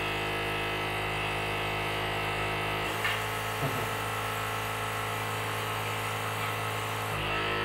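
Steady electric buzzing from a DIY delta robot's vacuum air pump and stepper motors, with two short clicks about three seconds in.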